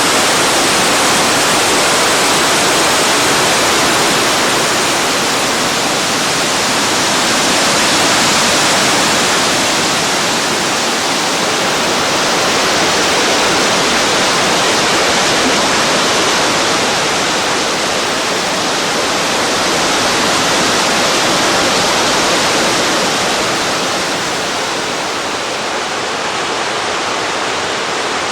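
Water sliding and splashing down a rock-slab waterfall, a loud, steady rush with slow gentle swells.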